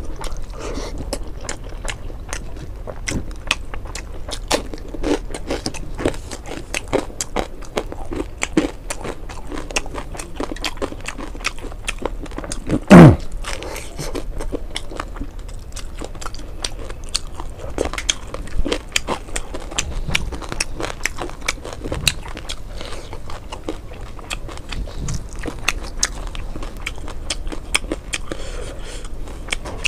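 A person chewing mouthfuls of fried fish and rice: a steady run of wet mouth clicks and crunches. About halfway through, one loud short sound falling in pitch stands out.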